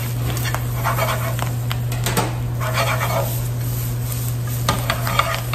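Brussels sprout leaves sizzling in a hot frying pan as they are stirred with tongs and the pan is tossed, with a few short bursts of scraping from the tongs and pan.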